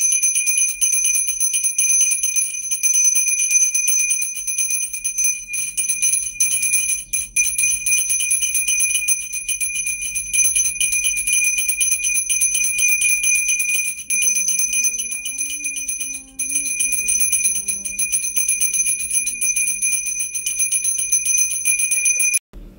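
A temple hand bell rung rapidly and without pause, a steady bright high ringing that stops abruptly near the end.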